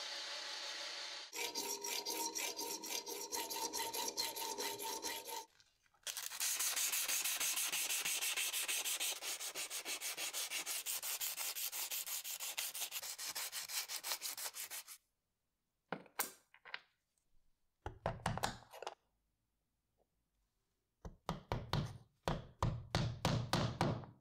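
Sandpaper rubbed rapidly back and forth over a knife handle scale, roughening the surface for glue. This comes after a brief stretch of a metal lathe cutting a brass pin. Near the end there are groups of short knocks as brass pins are tapped into a wooden handle.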